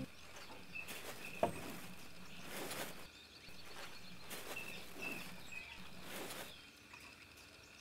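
Quiet background ambience with a few short, high chirps like a small bird's, soft rustling and handling noises, and a single sharp click about one and a half seconds in.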